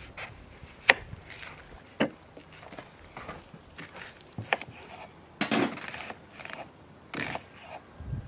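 Kitchen knife slicing an onion on a wooden cutting board: irregular sharp knocks of the blade against the board, one every second or so, the loudest about a second in, with a longer stretch of crunchy cutting just past the middle.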